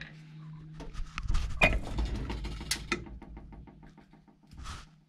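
Metal clinks and knocks as the flywheel magneto rotor of a Yamaha Slider scooter engine is pulled off the crankshaft by hand, followed by a quick run of light clicks, about eight a second. The rotor comes off without a puller because its crankshaft key has sheared.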